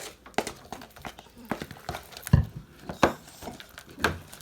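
Spoons stirring thick, sticky slime in bowls: irregular wet squelches and clacks of spoon on bowl, with the loudest knocks about two, three and four seconds in.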